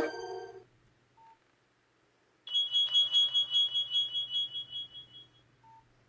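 Nokia 6301 mobile phone playing a high electronic alert tone: a rapid pulsing beep that fades out over about three seconds. Short lower beeps sound once before it and once after it, and the tail of the previous musical ringtone cuts off at the start.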